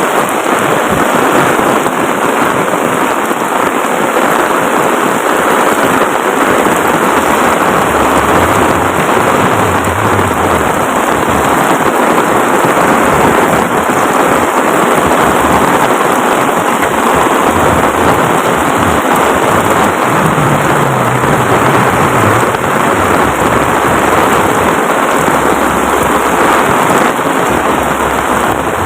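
Heavy rain pouring down in a steady, dense hiss, with a low rumble that swells now and then.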